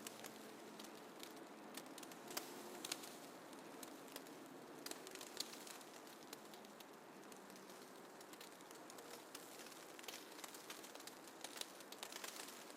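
Faint snowfall ambience: a soft steady hiss with scattered light ticks and patters, a little busier in a couple of stretches.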